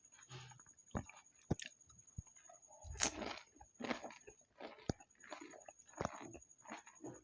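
Close-miked eating of pani puri: crisp puris crunching between the teeth, with wet chewing and several sharp clicks and smacks at irregular intervals.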